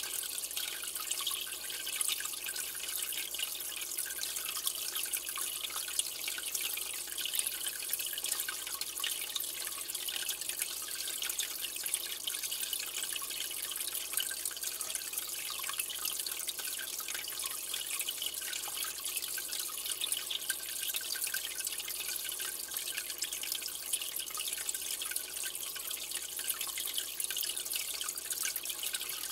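Aquarium water trickling and dripping steadily: a constant hiss with many small drip-like ticks, as from a tank's filter return or overflow.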